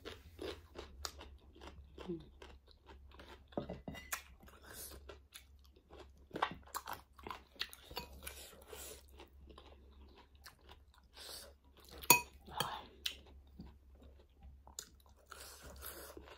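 Close-up chewing and crunching of raw cucumber, irregular crisp crunches with wet mouth sounds. A single sharp click about twelve seconds in is the loudest sound.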